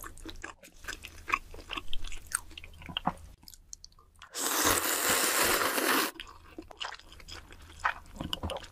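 Close-miked eating: wet chewing clicks and mouth smacks, then about four seconds in a loud, continuous slurp of noodles in spicy red sauce lasting nearly two seconds, followed by more chewing.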